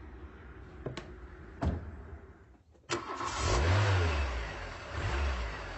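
An engine starts with a sudden catch about three seconds in, then revs up and back down twice. Two short clicks come before it.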